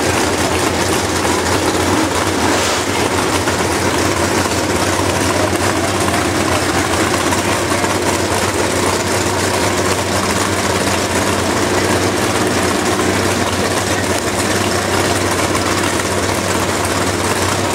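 Off-road vehicle engines idling, a loud steady low rumble that holds without revving.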